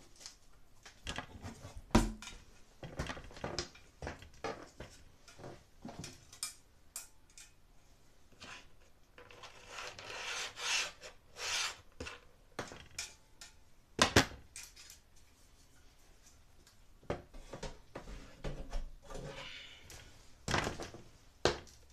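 Handling noise close to the microphone: irregular knocks, clicks and rubbing, with two sharp knocks about 2 and 14 seconds in and a stretch of rustling scraping around the middle.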